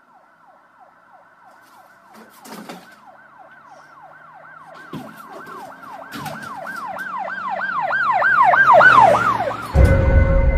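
Emergency vehicle siren in a fast yelp, its pitch falling again and again about three times a second and growing steadily louder as it approaches. It cuts off suddenly near the end as music comes in.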